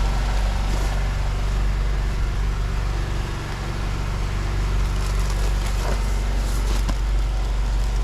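A steady, low engine hum runs throughout, with faint background noise above it.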